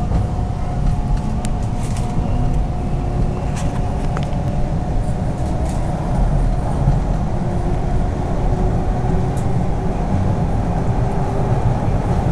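Subway train running through a tunnel, heard from inside the front car: a steady low rumble with a faint steady whine over it and a few sharp clicks.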